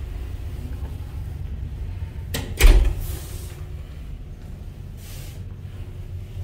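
A hinged door pulled shut: a short click, then one thump as it closes about two and a half seconds in, over a steady low rumble.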